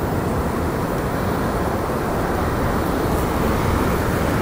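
Steady rushing outdoor noise with a low rumble.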